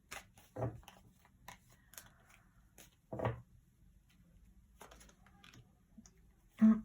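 Light clicks and soft rustles of tarot cards being handled on a table, with two slightly louder handling sounds about half a second and three seconds in. A brief voice sound comes near the end.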